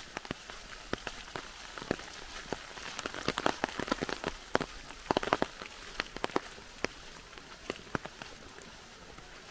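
Rain in a forest: a steady hiss with drops tapping irregularly close by, a thick flurry of taps in the middle.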